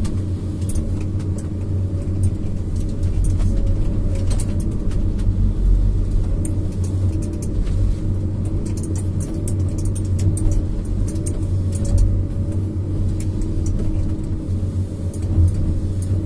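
Diesel engine and hydraulics of a PC200F-based harvester running steadily, heard inside the cab, with scattered sharp clicks and knocks, thickest in the middle, as the 370E harvester head grips and works a log.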